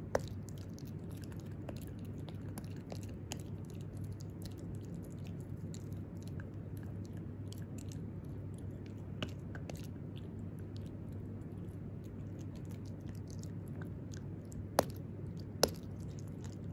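Italian greyhound puppy chewing on a hand-held dental chew, its teeth making a string of small irregular clicks and crunches, with two sharper cracks near the end.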